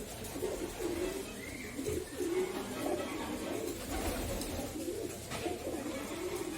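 Domestic pigeons cooing, low wavering coos following one another without a break.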